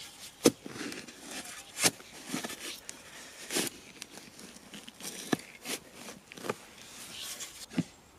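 Short-handled metal spade digging in sandy soil: the blade stabs into the ground with sharp crunching strikes about once a second, with gritty scraping of dirt between them.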